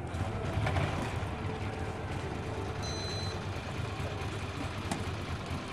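Low, steady rumble of motorcycle engines idling over a general crowd hubbub, with a short high beep about three seconds in.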